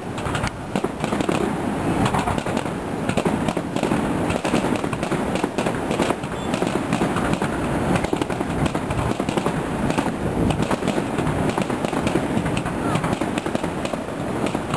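Fireworks display going off in a dense, unbroken barrage of bangs and crackling.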